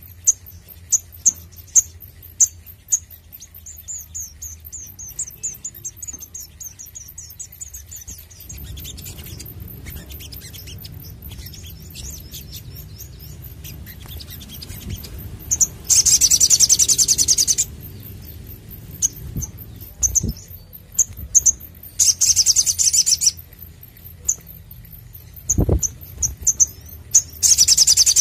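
Male olive-backed sunbird singing: a string of short, high, thin chirps, broken three times by loud bursts of rapid trilling. The first burst comes about halfway through, the second a few seconds later and the third near the end. This is the rapid-fire 'nembak' song used as a tutor recording for training other birds.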